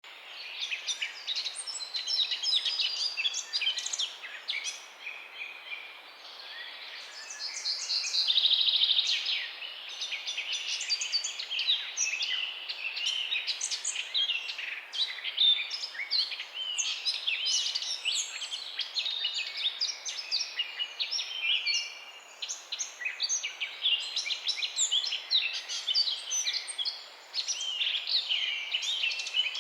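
Many songbirds chirping and singing at once, a dense overlap of quick chirps and short trills. About eight seconds in there is one louder, rapid trill.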